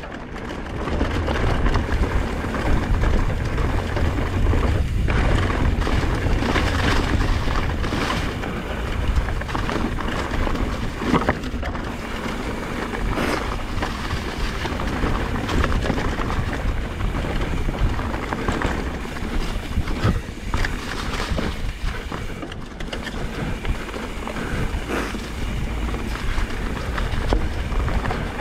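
Fast mountain bike descent over a rocky trail: wind rushing over the GoPro's microphone, with tyres rumbling over rock and frequent clattering knocks and rattles from the bike.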